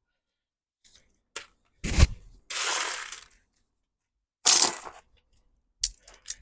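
Copper-coated steel coins snapping up onto a powerful fishing magnet: several sharp metallic clacks as coins strike it, with a brief rattle of coins shifting in the pile in between.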